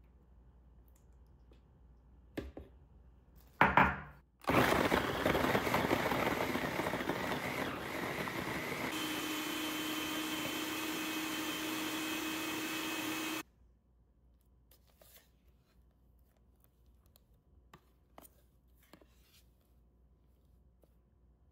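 Small food processor blending frozen coconut chunks and banana with coconut milk: after a short loud knock, the motor and blade run loud for about nine seconds, rough and uneven at first, then settling into a steadier hum with a clear tone as the mixture turns smooth, and it cuts off suddenly. Faint small clicks follow.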